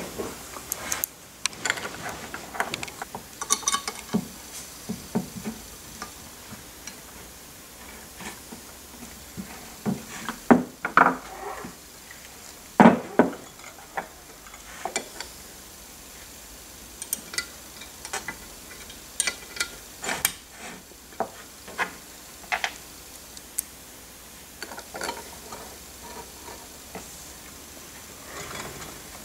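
Small metal hardware and a hex screwdriver handled on a wooden workbench: scattered light clicks and clinks as screws are driven into the aluminium end plates of a C-beam rail and parts are picked up and set down, with a few louder knocks about halfway through.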